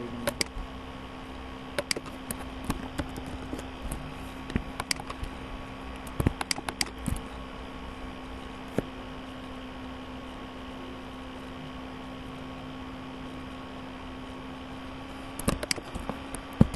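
Steady electrical hum of a running computer, with scattered sharp clicks of desk input in small clusters near the start, around the middle and again near the end.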